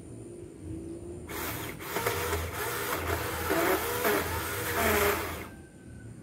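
Battery-powered 4-inch mini chainsaw (Bull brand) running. About a second in, the chain bites into the trunk of an old water apple tree with a loud rasping noise over the motor whine, which wavers under load, then drops away briefly near the end.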